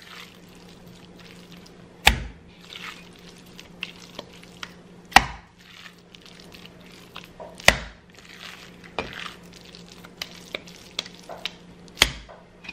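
Handfuls of wet minced meat slapped hard down into a stainless steel pot: four loud smacks a few seconds apart, with quieter squelching as the mince is gathered up between them. This is the mince being beaten to make it dense and smooth for cutlets.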